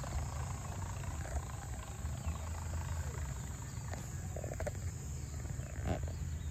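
Wind buffeting the microphone: a steady, uneven low rumble over faint open-air background noise.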